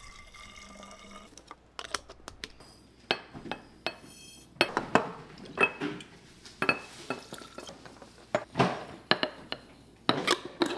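Kitchen clatter: dishes, cutlery and glassware knocking and clinking, a string of separate sharp knocks, some ringing briefly.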